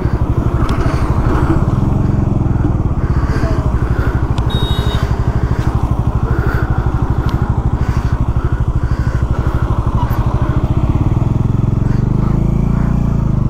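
Motorcycle engine running at low revs with a steady, rapid pulse, heard from the rider's seat. The note fills out a little about eleven seconds in.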